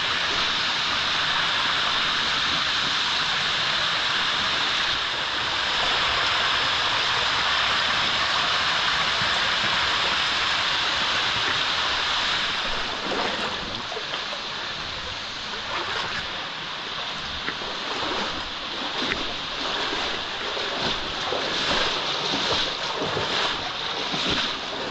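Steady rush of a small waterfall and creek echoing in a narrow rock slot canyon. About halfway through the rush drops back and irregular splashes and knocks come through.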